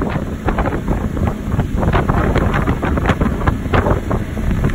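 Loud, gusty wind buffeting the phone's microphone aboard a moving open boat.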